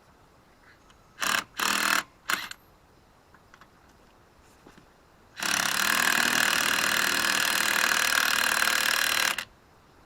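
Cordless impact wrench hammering on a truck wheel's lug nuts to break them loose: three short trigger pulls, then one steady run of about four seconds.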